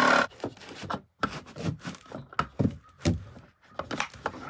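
A jigsaw motor runs steadily and cuts off just after the start. Then come irregular knocks, thunks and scrapes as a plastic access-port fitting is pushed and worked into a tight, freshly cut hole in the van's wall panel.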